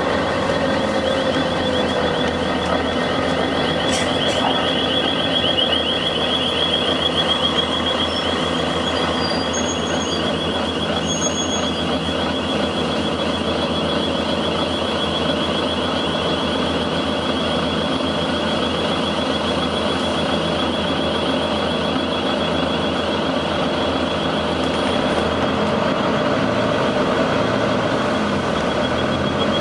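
Volvo B9TL double-decker bus's diesel engine running, its note falling in the first couple of seconds, with a steady high-pitched whistling hiss over it that the owner thinks sounds like a faulty turbo.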